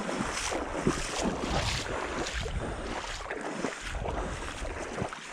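Person wading in waders through shallow marsh water, splashing and sloshing at a steady walking pace of about two steps a second, with wind on the microphone.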